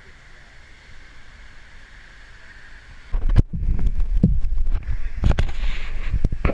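Steady rush of a waterfall. About three seconds in, loud close rumbling and several sharp knocks break in, as the action camera is bumped and handled near the falling water.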